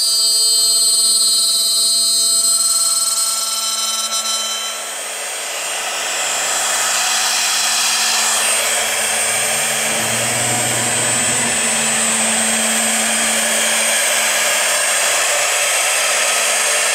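Electric spindle of a CNC aluminum-profile drilling and milling machine running with a steady whine of several tones. About five seconds in, the tones drop away and the level dips briefly, then a broad, harsher noise of the bit cutting the aluminum profile takes over and holds steady.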